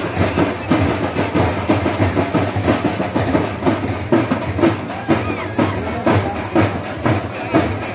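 Dappu frame drums beating a steady, driving rhythm, with strong accented strokes about two to three times a second.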